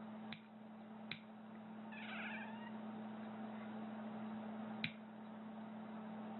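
A cat gives one short meow about two seconds in, among three sharp clicks of nail clippers snipping, over a steady low hum.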